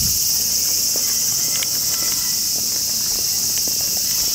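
Chorus of insects in the trees, a loud, steady, high-pitched buzz that does not let up.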